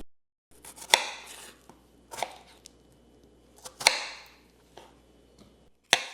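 Knife chopping food on a cutting board: four separate, unevenly spaced strokes with a few lighter taps between them.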